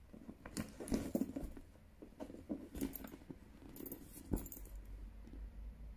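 Louis Vuitton NéoNoé monogram canvas bucket bag being handled and pulled open: soft rustling of the canvas and leather straps with scattered light clicks and clinks from its metal hardware, and one sharper click about four seconds in.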